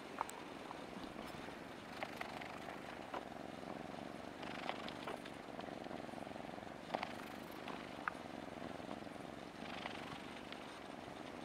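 Domestic cat purring steadily, heard close up, with a few short soft clicks scattered through it.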